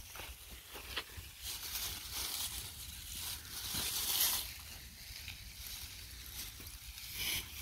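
Dry onion tops rustling and crackling as red onions are pulled up and handled, in irregular bursts over a steady low rumble.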